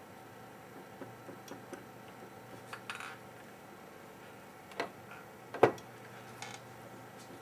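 Scattered light taps and clicks of small tools and swabs being handled on a workbench, the sharpest about five and a half seconds in, over a faint steady hum.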